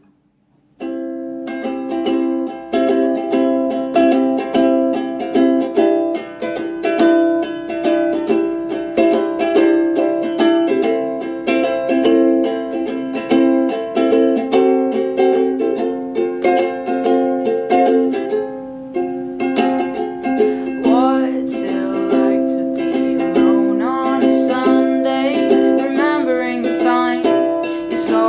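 Background music: a song on plucked ukulele, starting just under a second in after a brief gap, with a singing voice joining about two-thirds of the way through.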